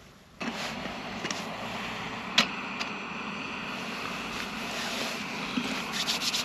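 Portable gas camping stove lit about half a second in, its burner then running with a steady hiss. A sharp knock about two seconds later, with a patter of light ticks near the end.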